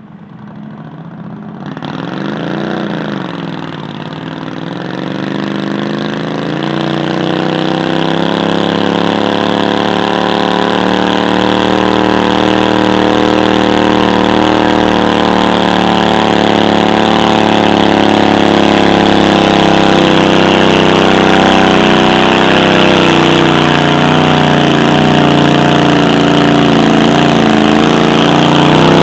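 A stock 25 hp garden tractor engine running, with a brief rise and fall in revs about two to three seconds in. It grows steadily louder over the first several seconds as the tractor comes closer, then holds steady.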